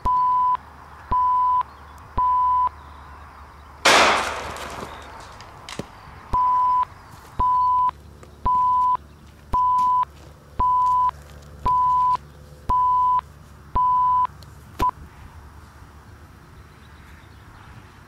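Electronic beeping from a solar uplink device: a single tone, half a second on, about once a second. About four seconds in, a single loud bang that dies away over a second breaks in and the beeps pause. They resume, then stop abruptly partway through a beep as the uplink is cut off.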